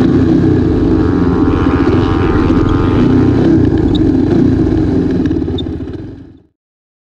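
Motorcycle engine running at a steady speed while riding, heard from a camera mounted on the bike. It fades out about six seconds in.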